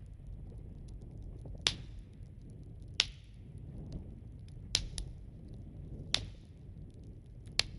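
Wood fire crackling: a low, steady rustle with five sharp pops, roughly one every second and a half.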